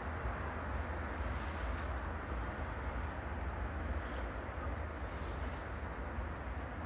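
Steady outdoor night background noise: a low rumble with a hiss over it, and a few faint high clicks or chirps about a second and a half in.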